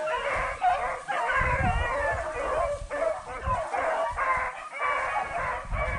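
A pack of beagles baying, several voices overlapping without a break: hounds giving tongue as they run a rabbit's scent trail.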